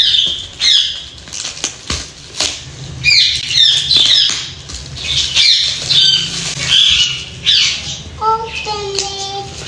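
A plastic courier mailer being cut open by hand, with a few sharp clicks and rustles, under high falling chirps that repeat two or three times a second. About eight seconds in, a small child starts singing a few held notes.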